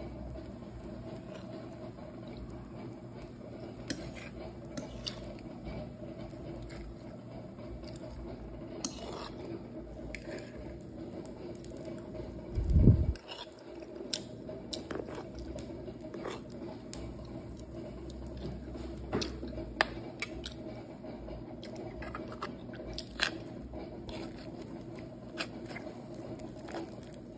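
A person eating pancake and fried egg with a metal fork: chewing, with short clicks and scrapes of the fork on the plate, over a steady low hum. A loud low thump about halfway through.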